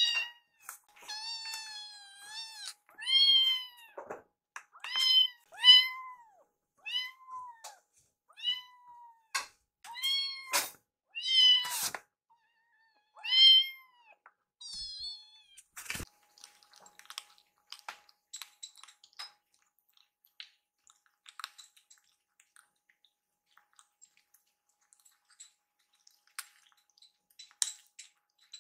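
Kittens mewing over and over, about a dozen high-pitched mews in the first half, begging to be fed. A single sharp knock comes about halfway, followed by faint small clicks and lapping as the kittens eat from their bowls.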